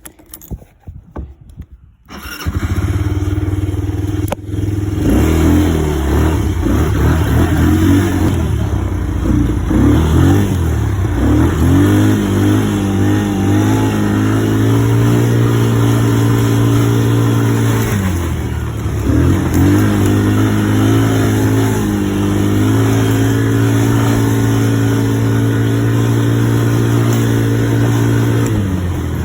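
ATV engine running under throttle, coming in abruptly about two seconds in. Its pitch rises and falls as it revs and shifts, dips briefly about two-thirds of the way through, and drops again near the end.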